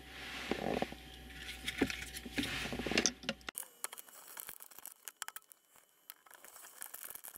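Hands handling a plastic hazard-light switch and screwing it into a dashboard panel with a screwdriver. There are about three seconds of rustling and scraping, then quieter, scattered small clicks as the screwdriver works the screws.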